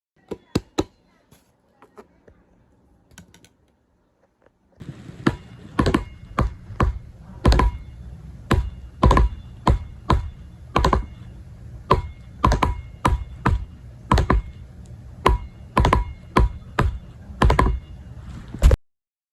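A few sharp clicks, then a low steady hum begins about five seconds in with irregular sharp taps or knocks over it, roughly two a second, some with a short ringing tone; everything cuts off suddenly near the end.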